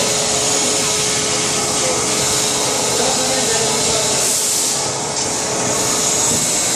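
Plastic injection moulding machine running with a bucket-handle mould: a steady noise, with a faint steady whine through most of it that stops near the end.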